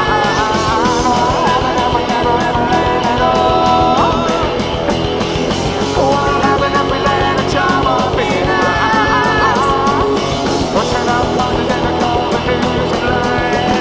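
Live rock band playing: an electric guitar lead with sustained, bending notes over drums keeping a steady beat.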